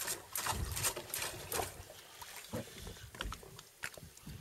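Irregular splashing and slapping of sea water against the side of a small fishing boat, a run of short uneven splashes and low knocks that is busiest in the first second and a half.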